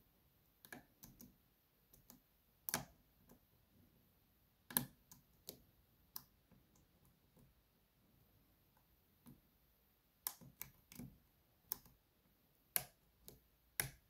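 Faint, irregular clicks of a steel hook pick and tension wrench working the pin stack inside a brass Schlage SC1 key-in-knob lock cylinder, a dozen or so small sharp ticks spread unevenly, some in quick pairs and threes.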